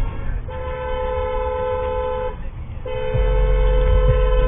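Car horn honking in two long blasts of about two seconds each, separated by a short gap. A low rumble of engine and road noise comes up under the second blast.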